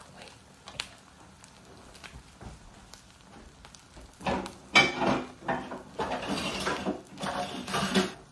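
A spatula and frying pan clinking and scraping: a few faint clicks at first, then a busier, louder stretch of utensil-on-pan sounds from about halfway through.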